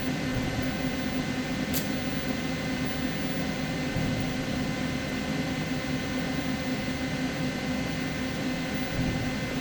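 Pulsed TIG welding: a steady electric hum and hiss with several fixed tones. A single sharp tick sounds about two seconds in.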